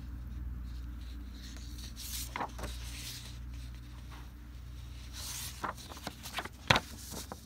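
A stack of printed card character sheets being handled and leafed through, the sheets sliding against each other in short rustles. Several sharp clicks come late on, the loudest about two thirds of the way in, over a steady low hum.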